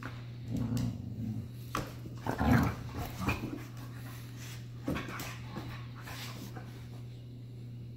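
Siberian husky and husky puppy play-fighting: scattered short growls and whimpers, the loudest about two and a half seconds in.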